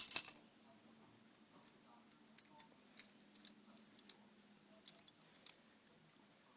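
Butterfly knife being handled: a short metallic clatter of its handles and latch at the very start, then faint scattered clicks.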